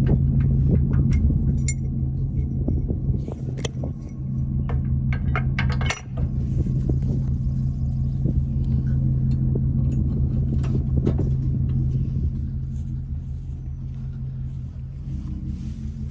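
Farm machine's diesel engine running steadily, with scattered metallic clanks and rattles on top; the level dips briefly about six seconds in.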